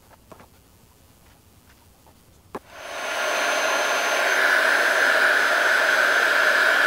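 Heat gun switched on with a click about two and a half seconds in. Its fan comes up over half a second into a steady blowing rush with a whine, as it shrinks heat-shrink tubing over freshly soldered wire joints. Before that, faint ticks of the wires being handled.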